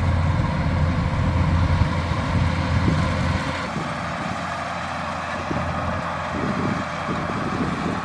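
Kubota DC-105X combine harvester's diesel engine running steadily while the machine cuts rice, a low hum under a dense mechanical clatter and hiss. The low hum drops away and the sound gets quieter about three and a half seconds in.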